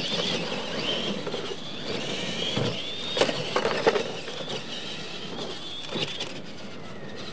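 Electric R/C monster trucks running on dirt: a high motor and gear whine that rises and falls with the throttle, with a few sharp clatters from about two and a half to four seconds in and again near six seconds as the trucks land off ramps.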